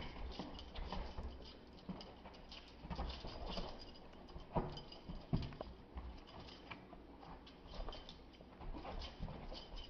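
Irregular soft scuffing and pattering of sneakered feet and a baby raccoon's paws on a carpet as the raccoon scrambles after the feet.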